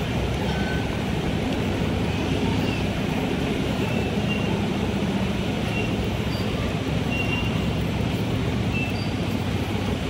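Steady road-traffic rumble of vehicle engines, with a few faint, short high-pitched tones.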